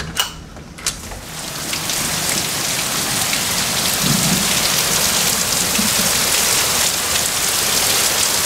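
Heavy thunderstorm rain pouring down, swelling over the first two seconds into a loud, steady downpour. Two sharp clicks come near the start.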